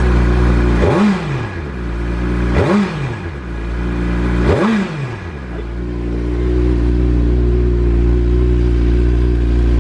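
Suzuki Hayabusa GSX1300R inline-four idling in neutral through its stock exhaust, given three quick throttle blips about a second, a second and a half, and two seconds apart, each a short rise and fall in pitch, then settling back to a steady idle.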